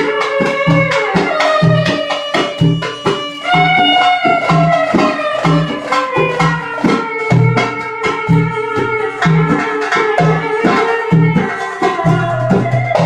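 Live Middle Eastern belly-dance music: a darbuka (goblet drum) keeps a steady rhythm of deep strokes about twice a second with sharp taps between, under a long, sliding melody line.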